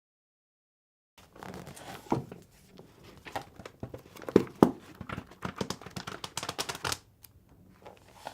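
Silent at first, then, from about a second in, a busy run of sharp clicks, taps and rustling handling noises that stops about seven seconds in.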